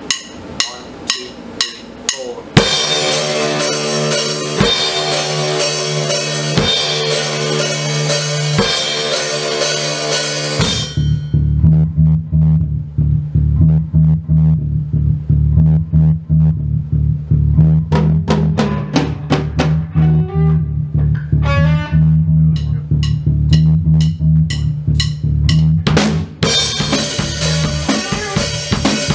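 A rock band plays on drum kit, bass and electric guitar, entering after evenly spaced count-off clicks. About ten seconds in, the guitar drops out, leaving bass and drums with scattered drum hits. The full band comes back in near the end.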